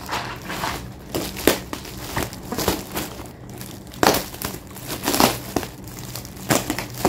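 Plastic packaging crinkling: bubble wrap and a plastic mailer bag rustling in irregular crackles as they are handled and cut open with scissors.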